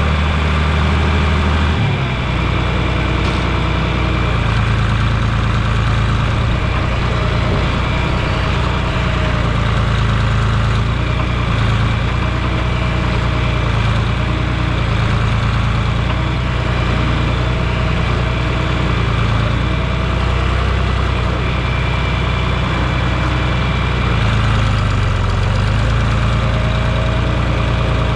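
Diesel tractor engine running steadily, its pitch and load shifting briefly about two seconds in and again near the end.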